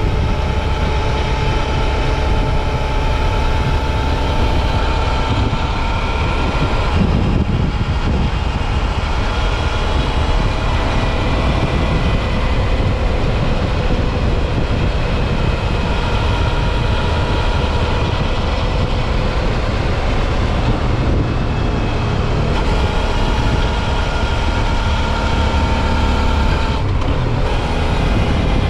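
Suzuki V-Strom 650 XT's V-twin engine running at a steady cruise, its faint whine drifting slightly in pitch under a heavy rumble of wind and road noise.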